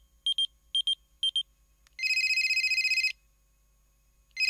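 Telephone ringing: a rapid high electronic trill about a second long, starting again near the end. It is preceded by three quick, high electronic double beeps about half a second apart.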